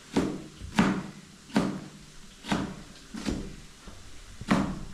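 A blunt kitchen knife chopping vegetables on a cutting board: about six separate knocks of the blade striking the board, each a little under a second apart.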